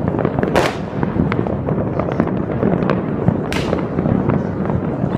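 Many fireworks going off across a city at once: a continuous dense crackle of bangs and pops, with two sharper bangs standing out, about half a second in and again about three and a half seconds in.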